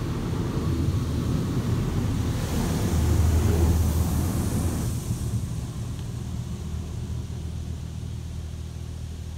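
High-pressure water jets of a PDQ LaserWash 360 Plus touchless car wash spraying over the car, heard from inside the cabin as a hiss of water over a low rumble. The hiss is loudest a few seconds in and drops off about halfway through, leaving the rumble.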